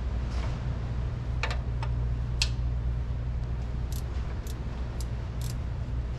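A 9/16 wrench working a bolt on a tractor's clutch inspection cover: a few sharp metallic clicks, then four evenly spaced about half a second apart near the end, over a steady low rumble.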